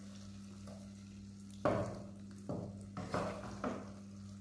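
Wooden spatula scooping thick keema with potatoes out of a pot into a clay bowl: about five short scrapes and knocks, the first about a second and a half in, the rest close together in the second half.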